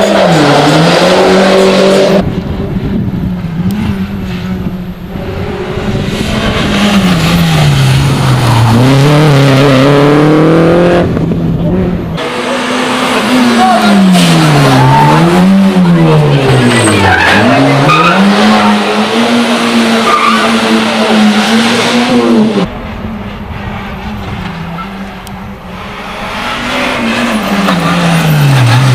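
Rally car engines at full throttle, the pitch climbing and dropping sharply with each gear change and lift as the cars brake and accelerate through the stage, in several separate passes. Tyres squeal in places.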